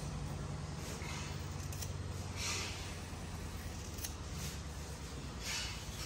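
Scissors cutting through a horse's mane, several short crisp snips spread over a few seconds.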